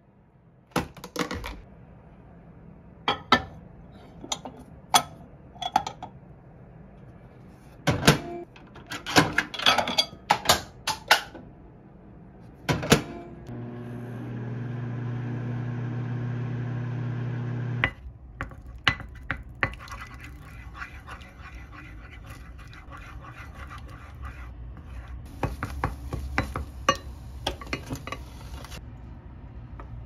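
Dial-operated microwave oven: a plastic container set inside and the door handled with sharp clicks and knocks, then the oven running with a steady low hum for about four seconds, which stops abruptly. Afterwards lighter clinks and clicks of dishes and utensils.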